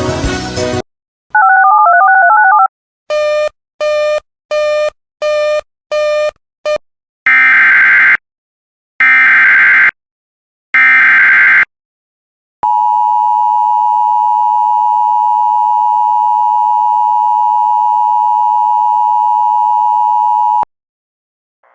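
Music cuts off, then a short warbling tone and seven quick beeps. Three one-second bursts of Emergency Alert System SAME header data follow, a harsh digital screech. Then comes the EAS attention signal, a steady two-tone alert held for about eight seconds and cut off abruptly.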